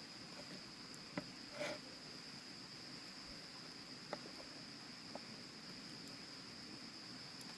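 Insects trilling in one steady, unbroken high-pitched tone, with a few short faint clicks, the sharpest about a second in.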